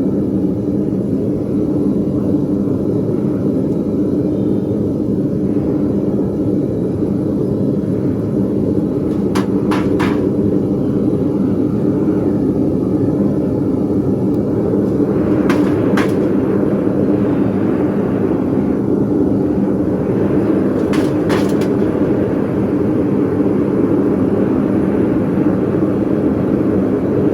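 Foundry furnace burner roaring steadily at full blast, with a few pairs of sharp clicks standing out above the roar.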